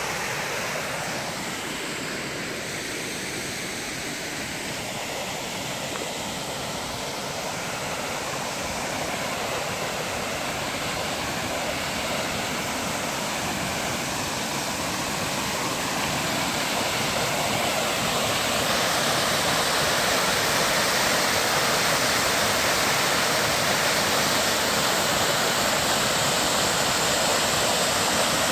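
Small waterfall pouring into a shallow creek pool: a steady rush of falling and splashing water that grows gradually louder and brighter over the first two-thirds, then holds steady.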